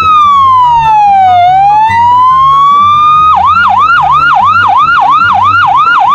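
Toy ambulance's electronic siren: a slow wail that falls and rises once, then switches about halfway through to a fast yelp of about three rising sweeps a second.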